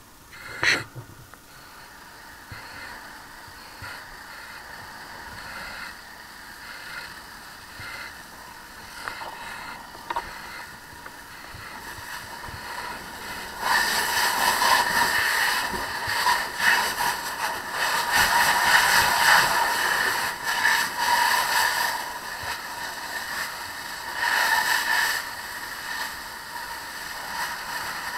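Fire hose spray and steam hissing in loud bursts of several seconds against the smoldering car's interior, starting about halfway through and again near the end. Before that there is a lower steady noise, and a sharp knock about a second in.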